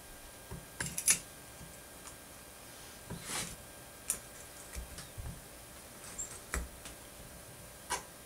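Pliers twisting thin wire around a small metal twist-eye forming tool: scattered small clicks and light scrapes of metal on metal, several seconds apart.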